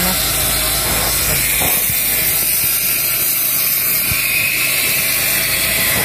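A machine running steadily, with a low hum under a loud even hiss. A few faint knocks sound about a second in, near two seconds and around four seconds.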